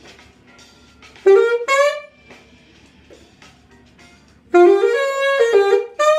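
Saxophone playing two phrases of a jazz-funk melody: a short figure about a second in, then a longer run of notes from about four and a half seconds.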